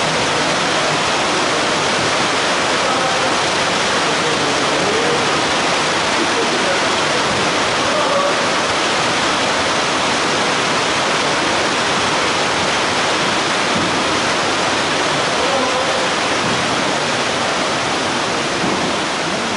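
Steady, loud rushing hiss with no change, and faint voices just audible beneath it.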